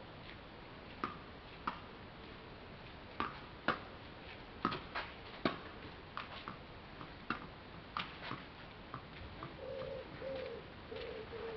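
Tennis ball being struck and bouncing in a rally: sharp pops, often in pairs (bounce, then racket hit) a fraction of a second apart. Near the end a bird coos in short, low notes repeated about twice a second.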